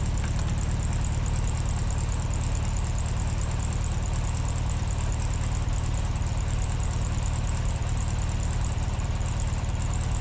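Steady low rumbling hum with a thin, high-pitched whine above it, unchanging throughout, with no distinct events.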